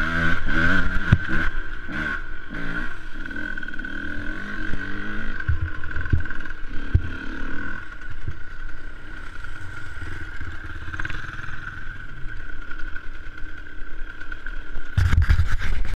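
Two-stroke engine of a KTM 125 EXC dirt bike heard from on board, revving up and down as it climbs, then running more steadily. A few sharp knocks come from the bike over rough ground midway, and the engine surges loudly near the end.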